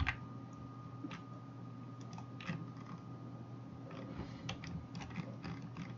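A few scattered clicks from a computer mouse and keyboard, one right at the start and a small cluster about four seconds in, over a faint steady hum with a thin whine.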